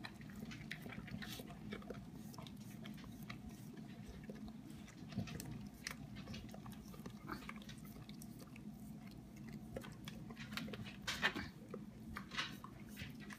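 A basset hound licking a pan: a run of short, wet licks and smacks, busier and louder from about ten seconds in.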